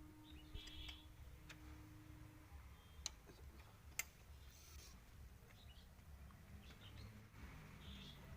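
Faint, scattered clicks and taps over near silence, with sharp single clicks about three and four seconds in: metal tools and fittings being handled while a diesel engine's injector nozzle pipe is fitted.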